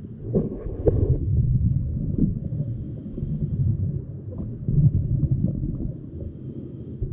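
Muffled, low rumbling water noise picked up by a camera held underwater, with a few brief crackles in the first second or so.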